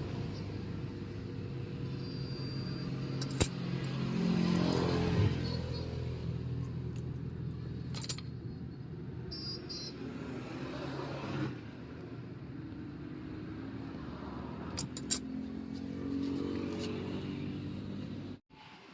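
An engine running with a steady hum that swells twice, with a few sharp clicks over it.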